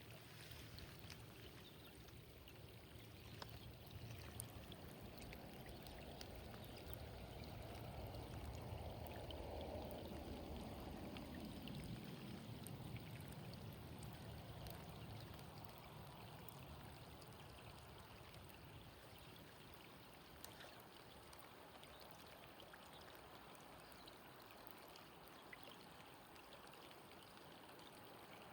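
Faint, steady sound of running water, dotted with small scattered ticks. A broader swell rises and falls in the middle, sliding lower in pitch as it fades.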